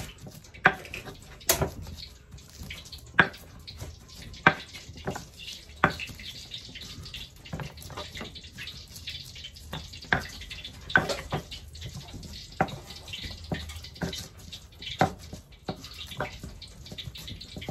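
A stone pestle knocking and grinding in a stone mortar (Indonesian cobek and ulekan), crushing shallots and garlic into a spice paste. There are sharp, irregular knocks about once a second over a rough scraping.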